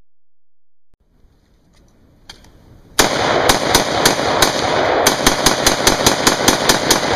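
Bushmaster XM-15 .223 AR-15 rifle firing semi-automatic, about fifteen sharp shots starting about three seconds in. A few spaced shots come first, then a fast string of four to five a second, each crack followed by a rolling echo.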